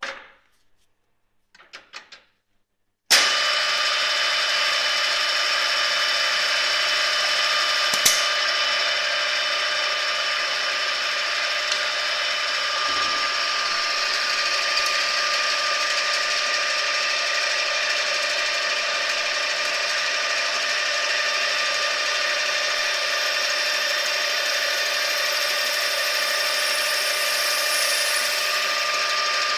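A few short knocks, then about three seconds in a drilling machine starts suddenly and runs steadily, driving a six-spindle drilling head with planetary gearing and 14 bearings: a steady whine with several held tones as it drills six 4 mm holes at once. One sharp click near the eight-second mark.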